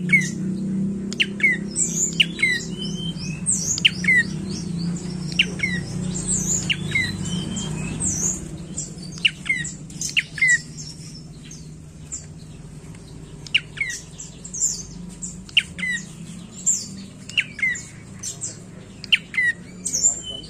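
Prenjak coki, a rufous-capped tailorbird, calling: short sharp notes about once a second, each a quick downward slide, mixed with higher squeaky notes. A low background hum fades away about eight seconds in.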